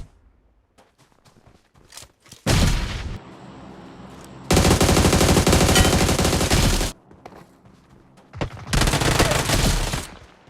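Automatic gunfire in bursts: a short burst about two and a half seconds in, a long rapid burst of about two and a half seconds from the middle, and another shorter burst near the end.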